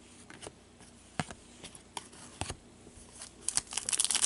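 Trading cards handled with gloved hands: a few separate light clicks and taps of card stock, then, near the end, quickening crackles as a foil card-pack wrapper starts to crinkle.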